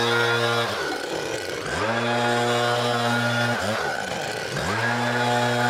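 Gas backpack leaf blower's small engine revved up and down: held at full throttle, it drops back about a second in, climbs back up about two seconds in, dips briefly, drops again about four seconds in and climbs back to full throttle near the end.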